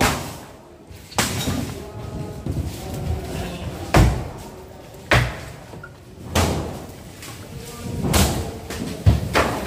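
Demolition blows: a worker hitting the metal frame of a temporary shelter with a long-handled tool, about seven loud bangs at uneven intervals, each with a short ringing clatter and debris rattling between.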